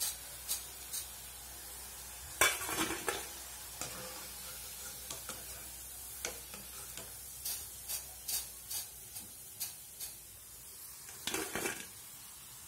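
Gobi (cauliflower) pakodas sizzling in hot oil in a kadai: a steady frying hiss. Sharp metal clinks and scrapes of a wire-mesh skimmer against the pan come through it, louder about two and a half seconds in and again near the end, as the fried pieces are scooped out.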